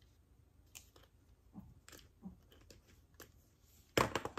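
Small flexible tripod with foam-covered legs being handled, its plastic mount head turned by hand: faint scattered clicks and taps, then one louder click near the end.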